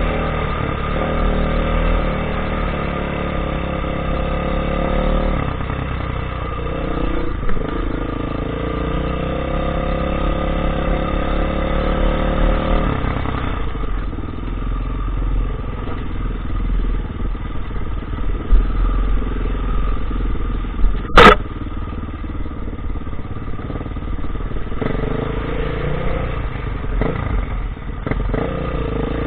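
Off-road dirt bike engine running while ridden along a rough trail; its note steps up and down as the rider shifts and works the throttle. One sharp knock about two-thirds of the way through is the loudest sound.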